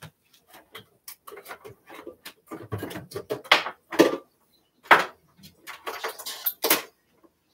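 Dishes and utensils clattering at a kitchen counter while food is handled and loaded into an air fryer: a run of irregular clicks and knocks, with sharper clatters around the middle and near the end.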